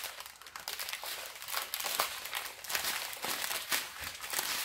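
Small plastic bags of diamond-painting drills crinkling as they are handled, an irregular run of crackles.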